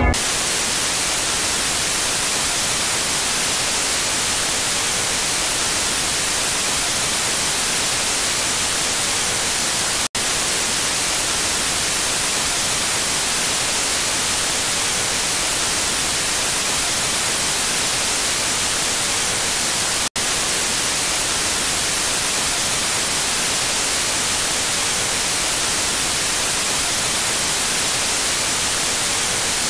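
Television static: the steady hiss of a no-signal channel, strongest in the high end. It cuts out for an instant twice, about ten and twenty seconds in.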